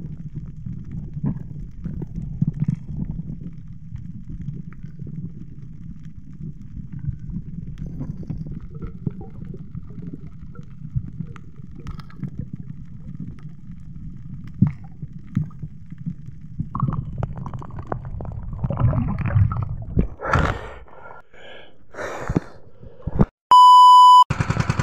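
Muffled low rumbling and gurgling of water heard through an underwater camera, with scattered small clicks and louder rushing bursts toward the end. Just before the end, a loud, steady test-tone beep.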